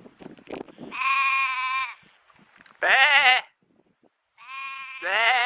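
Goat bleating three times: a steady bleat, then two shorter quavering bleats, the last one loudest near the end.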